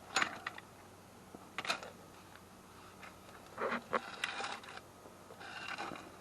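Handling noise: a few sharp knocks and clicks with short spells of rustling, as objects are picked up and moved.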